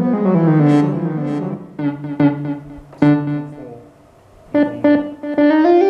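Casio XW-G1 synthesizer playing a piano-like preset: a falling run of notes into held chords, a short break about four seconds in, then a few short stabbed chords and a melody starting near the end.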